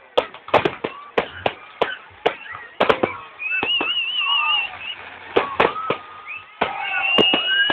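Aerial fireworks in a finale: a rapid, irregular run of bangs and crackles, about two or three a second, with high wavering whistles between them. Heard through a phone's microphone, so it sounds thin.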